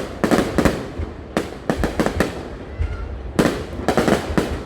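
Fireworks and firecrackers going off in rapid crackling volleys: three clusters of sharp bangs with short lulls between them.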